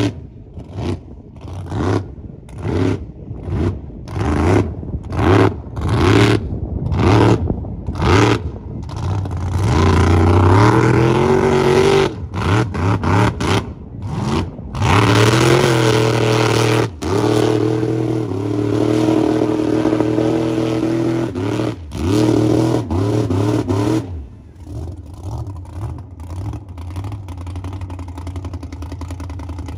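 Mega truck engine revving in quick repeated throttle bursts, then held at high revs in long pulls with the pitch climbing and stepping, as the big tires churn through water and mud. About 24 seconds in it drops to a lower, steadier engine note.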